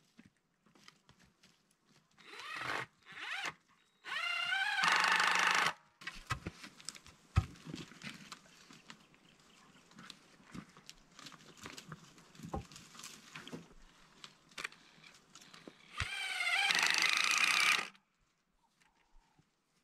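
Cordless drill whining up to speed and driving screws into wooden posts and planks: a short run about two seconds in, a louder run of nearly two seconds about four seconds in, and another near the end. Knocks and handling of wood between the runs.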